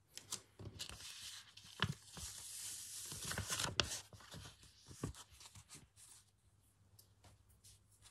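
Sheet of paper being peeled off a tacky gel printing plate, giving a crackling, tearing rustle over the first few seconds with a few sharp clicks. Fainter paper handling follows.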